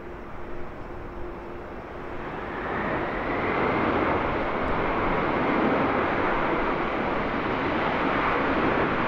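Boeing 767's twin jet engines running at high power as the airliner rolls along the runway, the roar swelling about two to three seconds in and then holding loud.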